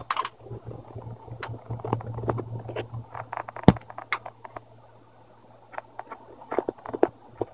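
Small clicks, taps and scrapes of a screwdriver and laptop plastic parts as screws are taken out of the screen assembly, with one sharper knock about halfway through, over a steady low hum.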